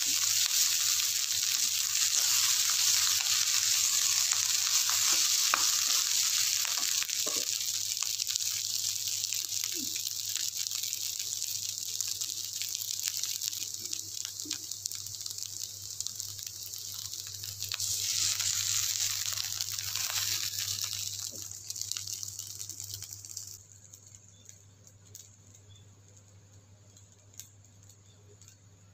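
Fried rice sizzling in a metal wok as a plastic rice paddle stirs and scrapes through it. The sizzle eases off, swells again briefly, then stops about three quarters of the way through, leaving only a few faint clicks.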